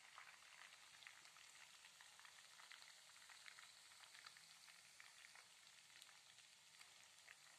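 Oil sizzling faintly as kremes batter crumbs deep-fry in a pan, with many small, irregular crackles.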